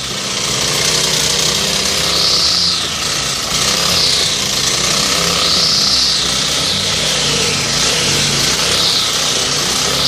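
Honda GX35 four-stroke engine of a multi-tool brush cutter running at high speed while its nylon-line trimmer head cuts grass. A high whine swells and fades several times as the line sweeps through the grass.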